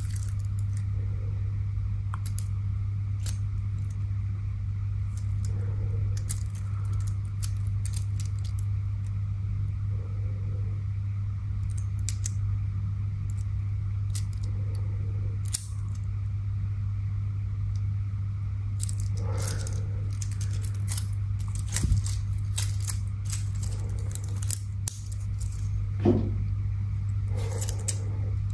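Two-tone stainless steel watch bracelet links and folding clasp clinking and clicking as the watch is handled and fastened on the wrist. Scattered sharp metallic clicks come thicker about two-thirds of the way through and near the end, over a steady low hum.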